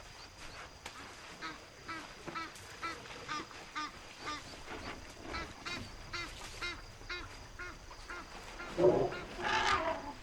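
A run of short, evenly spaced honking calls, about two a second, then a louder, harsher call about nine seconds in, the loudest moment.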